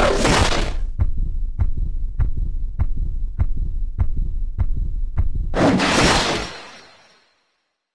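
Film soundtrack of a steady low thumping pulse, about one beat every 0.6 seconds like a slow heartbeat, with two short hissing whooshes, one at the start and one about five and a half seconds in. It all fades out to silence about a second before the end.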